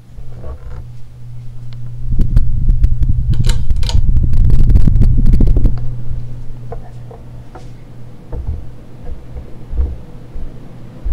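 Casablanca Hermosa ceiling fan's direct-drive motor running with a steady low hum. From about two seconds in, a loud low rumble with rustling and clicks lasts roughly four seconds, then fades back to the hum.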